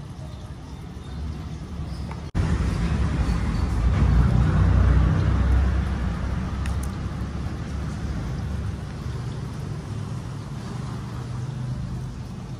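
Low engine rumble of a passing motor vehicle, swelling to its loudest about four to five seconds in and then slowly fading. The sound cuts out for an instant about two seconds in.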